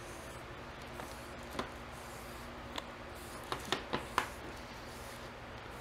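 Foam brush wiping stain onto a walnut rifle stock: faint soft brushing with a few light taps and clicks, several of them close together about halfway through, over a low steady room hum.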